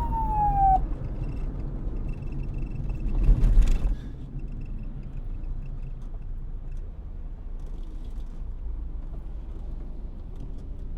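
Police siren winding down, its pitch falling until it cuts off within the first second, over a steady low vehicle rumble. About three and a half seconds in there is a brief loud rush of noise, and then the rumble goes on alone.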